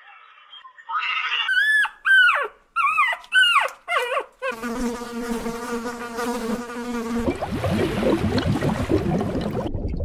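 A fly buzzing with a steady, even hum for a few seconds, after a run of about six short, high cries that each fall in pitch. The buzz gives way to a rougher, noisier sound near the end.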